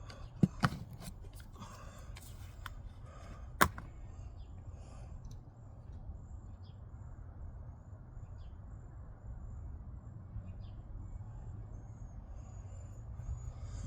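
Garden handling noises: a few sharp clicks and knocks in the first few seconds, then a steady low outdoor background with faint, scattered high chirps.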